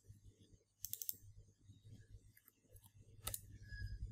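Faint computer mouse clicks: a quick couple about a second in and a single sharp click a little after three seconds, over a low steady hum.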